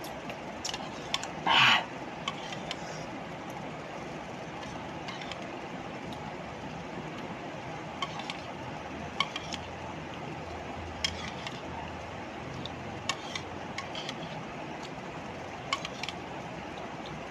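Eating from a plastic bowl: a loud slurp of ramen broth about one and a half seconds in, then scattered light clicks of a metal spoon against the bowl, over a steady background hum.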